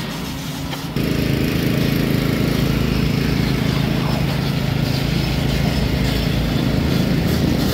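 Pressurised water gushing and spraying from an open water main into a flooded trench, starting abruptly about a second in and then running loud and steady, with a low hum underneath.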